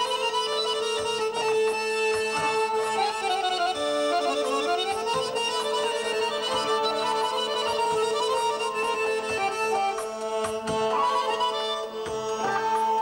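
Two Azerbaijani garmons, small button accordions, playing a folk melody together over a steady held drone note.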